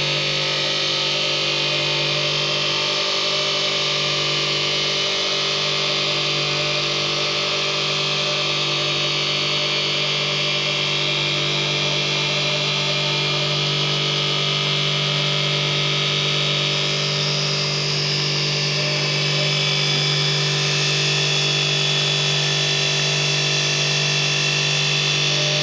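CNC lathe running steadily: a constant low hum with several steady tones, under a higher hiss.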